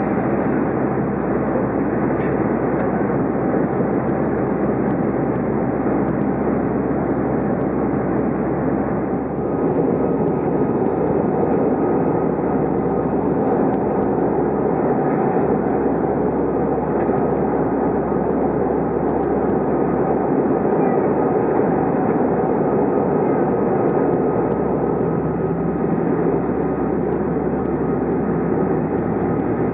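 Cabin noise inside an ATR 72 turboprop airliner on approach: the steady drone of its engines and propellers, a dense rush with a few steady humming tones running through it.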